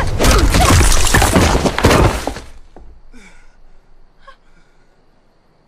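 Superpower sound effect: a loud, harsh blast of noise as a glowing light burst goes off. It dies away after about two and a half seconds, leaving a couple of faint short sounds.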